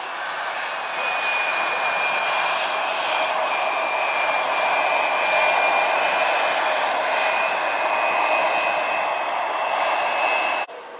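SkyWest CRJ700 regional jet rolling along the runway after landing, its rear-mounted GE CF34 turbofans giving a steady rush with a high whine that climbs slightly. The sound cuts off abruptly near the end.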